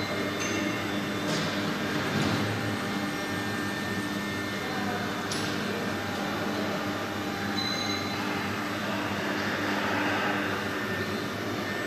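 CNC engraving router's axis drive motors jogging the gantry along the X axis, a steady mechanical hum with faint high tones that come and go.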